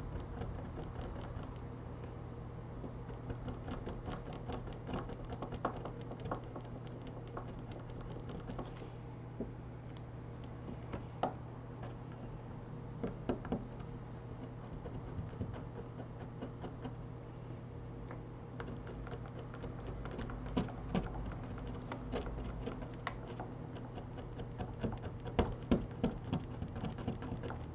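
Small hand tools clicking, tapping and scraping on a Samsung Galaxy A10 smartphone being taken apart. The clicks are light and irregular, over a steady low hum.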